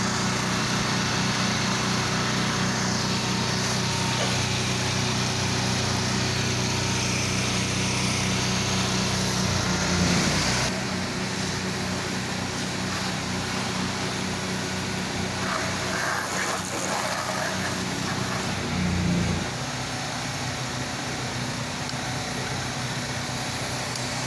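Small gasoline engine of a pressure-washing rig running steadily. Its note shifts briefly about ten seconds in and again about nineteen seconds in, after which it runs a little quieter.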